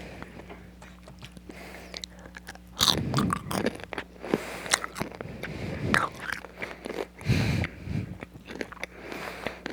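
Crispy Korean fries being bitten and chewed with crunching, the loudest bites about three and seven seconds in.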